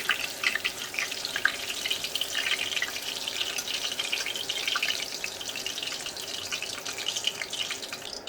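Chicken keema pakoras deep-frying in hot oil: a steady sizzle thick with small crackles and pops.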